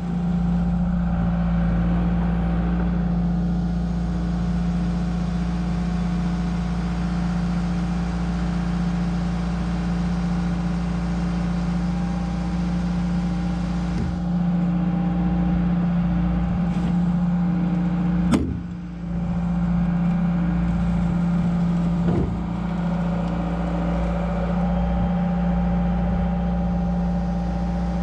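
John Deere 120 excavator's diesel engine running at a steady speed while the machine travels, with a few knocks and one sharp, loud clank about eighteen seconds in.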